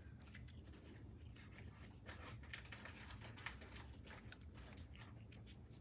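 Near silence with faint paper rustles and scattered light ticks as small die-cut paper pieces are handled; one tick about halfway through is a little louder.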